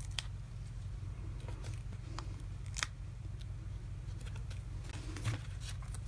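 Faint, scattered clicks and rustles of paper handling as mini dimensionals are peeled off their sheet and pressed onto a small die-cut paper cattail. A steady low hum lies underneath.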